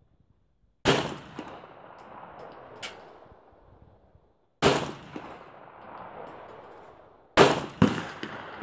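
Beretta 92FS 9mm pistol firing three single shots, about a second in, near the middle and near the end, each followed by an echo that fades over a couple of seconds.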